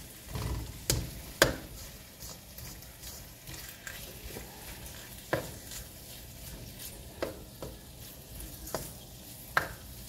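Smoked sausage, onions and tomato paste sizzling in a skillet, stirred with a spatula that scrapes and knocks against the pan several times.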